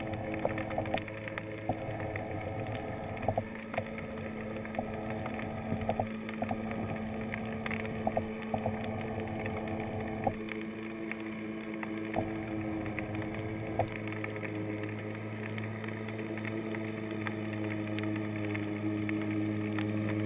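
Steady motor hum heard underwater, with a few even pitched tones, typical of a boat engine running nearby. Scattered sharp clicks sound over it, mostly in the first two-thirds. The hum's low part shifts about halfway through.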